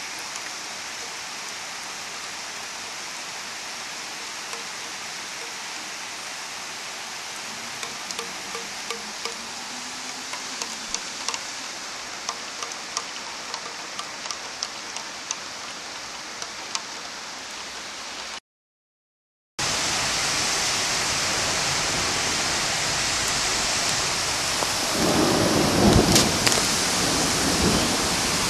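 Steady rain falling, with scattered sharp raindrops ticking close by. After a brief break comes a louder, heavier downpour, with a deep rumble of thunder near the end.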